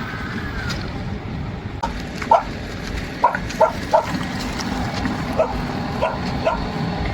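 A dog barks several times in short, sharp calls over the steady low rumble of a small homemade electric off-road vehicle being driven.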